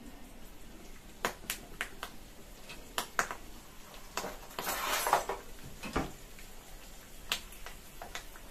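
Curry leaves and dried red chillies frying in hot oil in a small tempering pan: scattered sharp crackles and pops, with a brief louder sizzle about halfway through. A spoon stirs the pan near the end.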